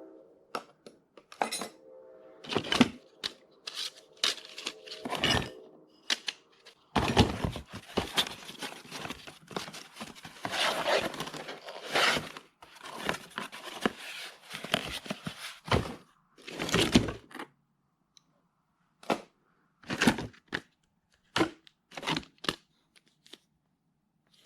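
Tool accessories and their packaging being handled: a string of hard knocks and clinks, with a busier stretch of rustling and clatter in the middle, then a few separate knocks near the end.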